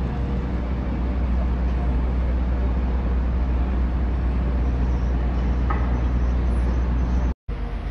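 Heavy rain falling steadily on a wide open paved courtyard, a dense hiss over a strong low rumble. The sound drops out for an instant near the end.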